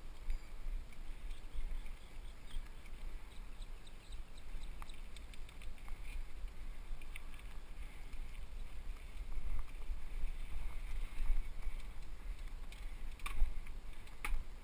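A mountain bike ridden on a dirt singletrack, heard from a helmet-mounted camera: a steady low rumble of movement with scattered small clicks and rattles from the bike and the trail, and two sharper knocks near the end.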